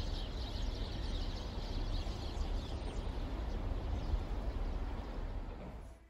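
Winter street ambience: steady traffic noise with a low rumble and small birds chirping faintly in the first few seconds. It cuts off shortly before the end.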